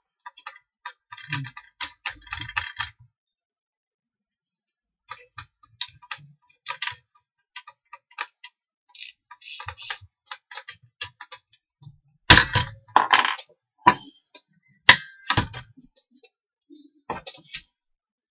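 Irregular small clicks and rattles of hands working the chuck of an electric drill mounted in a drill press stand, in short bunches with pauses between them. Two louder sharp clicks come about twelve and fifteen seconds in. The drill motor is not running.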